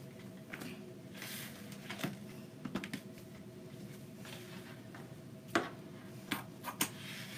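Scissors snipping through ribbon, with the ribbon rustling as it is handled: a few short sharp snips, the loudest about five and a half seconds in, over a faint steady hum.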